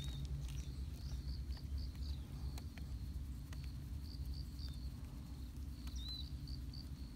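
Outdoor ambience: a steady low rumble with short high chirps repeating every half second or so, and a few faint light clicks.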